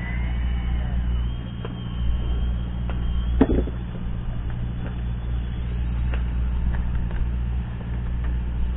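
Fishing boat's motor running steadily with a low drone, and a single knock about three and a half seconds in.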